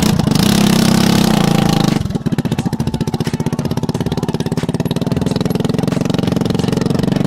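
Moped engine running with its exhaust pipe removed (muffler delete), loud and unmuffled. It runs high for about two seconds, then settles into a rapid, evenly pulsing idle.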